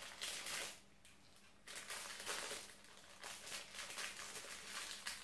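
Small plastic bag crinkling and rustling in the hands in several short bursts as a spoonful of minced pork and cabbage mixture is pushed into it.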